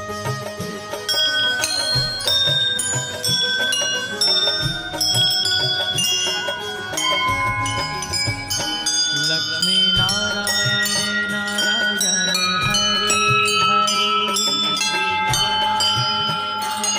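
Brass temple bells rung over and over: several bells of different pitches struck rapidly, their rings overlapping into a continuous peal.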